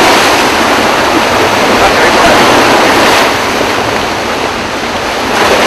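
Loud, steady rush of turbulent floodwater released through a dam's open gates, churning over a submerged walkway.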